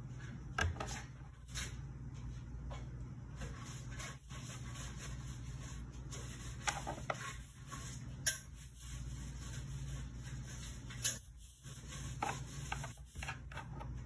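Intermittent rubbing and scraping with a few sharp clicks over a steady low hum.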